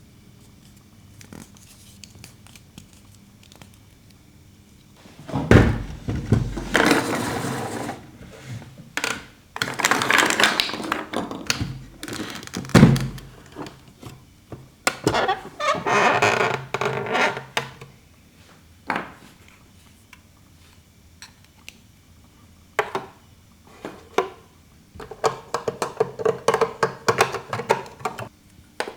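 Plastic toy refrigerator and its small parts being handled: two dull thunks, stretches of rustling and scraping, and a quick run of light clicks near the end.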